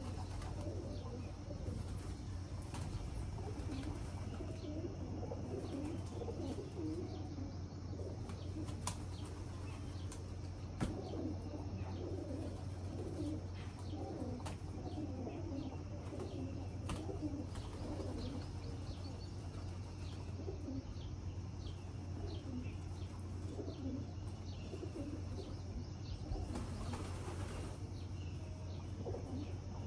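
Pigeons cooing again and again while feeding, with scattered small taps and a brief rush of wingbeats near the end, over a steady low hum.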